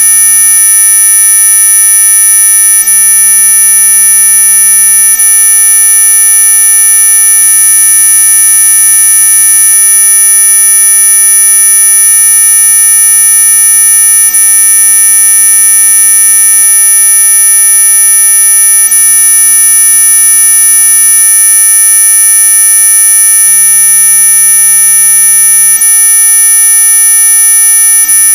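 Synthetic mosquito-repellent tone track: several electronic tones sounding together, loud and held without any change, the strongest very high-pitched.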